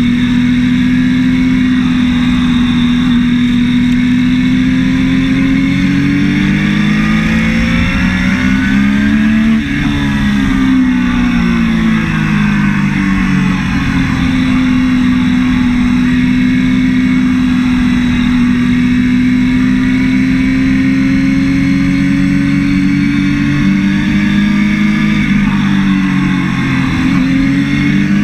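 Onboard sound of a Triumph Daytona 675's three-cylinder engine running hard on track. It holds a steady note for long stretches; around ten seconds in its pitch climbs, drops briefly, then falls, and it dips and rises again near the end.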